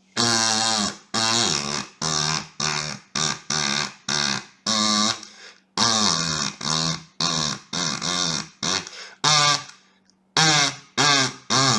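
Kazoo hummed in a rapid series of short, buzzy notes, each bending in pitch, with a brief pause about ten seconds in.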